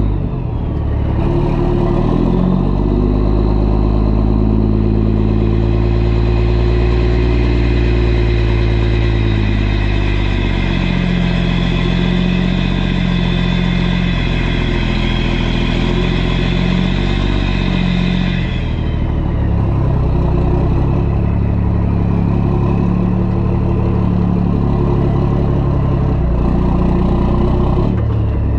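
Tow truck's engine running under load while pulling a trailer carrying an excavator at low speed. The engine note shifts several times as it manoeuvres, with a higher whine over the first two-thirds that fades out.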